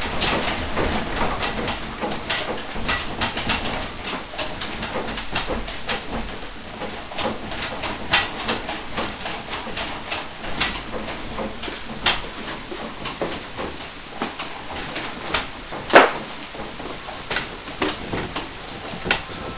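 Rattling and creaking of an apartment room shaken by a strong earthquake: an irregular run of clicks and knocks from things in the room, with one sharp, loud knock about sixteen seconds in.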